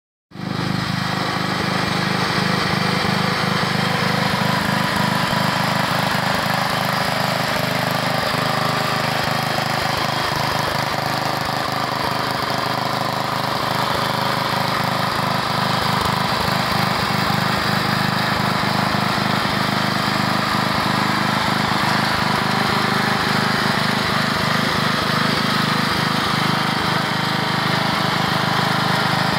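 Montgomery Ward riding lawn mower's engine running steadily at an even speed.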